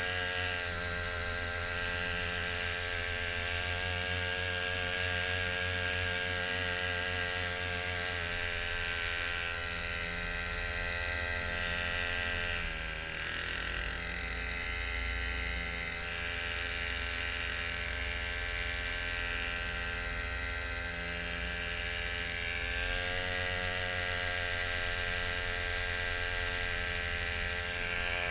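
Kayak's side-mounted motor running steadily, its pitch dipping briefly about halfway through and then recovering.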